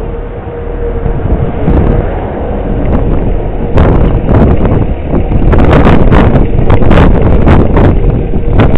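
Strong wind buffeting the microphone, turning gustier and crackling from about four seconds in. Underneath, a faint steady tornado siren tone holds until near the end.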